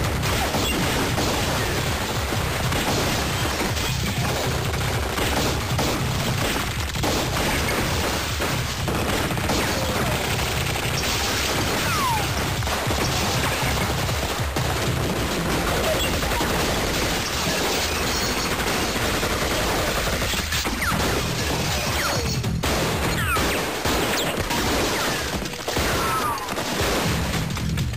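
Film shootout soundtrack: sustained rapid gunfire over action music.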